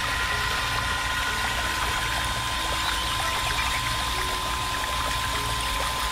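Miniature motor-driven water pump running with a steady high whine, while its stream of water pours and splashes into a small pool.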